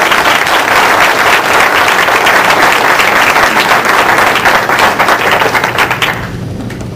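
Audience applauding, a dense run of many hands clapping that dies away about six seconds in.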